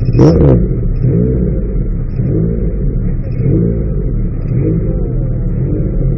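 Mitsubishi MPR13 rally-raid car's engine, heard from inside the cockpit, held stationary and blipped in short revs about once a second. A sharp crack comes about a third of a second in.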